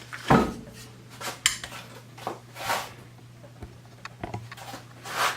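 Metal clicks, scrapes and knocks of a Ruger Precision Rifle being handled and fitted back together, the loudest knock about a third of a second in, over a faint steady hum.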